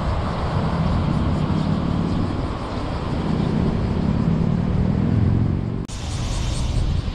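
Car on the move, heard from an on-board dash camera: a steady low rumble of engine and tyre road noise. About six seconds in the sound breaks off for an instant and comes back with more hiss.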